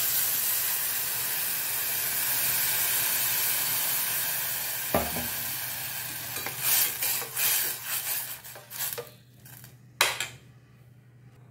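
Water poured into a hot stainless steel pot of sautéed vegetables, sizzling steadily for about six seconds as it hits the hot oil. Then a spoon stirs the pot in short scraping strokes, with a sharp knock against the pot about ten seconds in.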